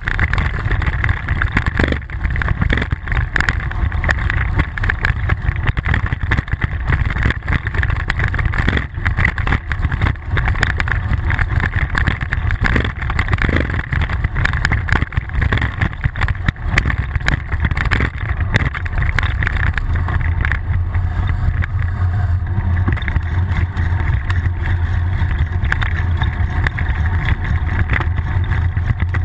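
Steady low rumble of wind buffeting and tyre-on-road noise picked up by a bicycle-mounted GoPro action camera while riding, with frequent small knocks and rattles from the bike over the road surface.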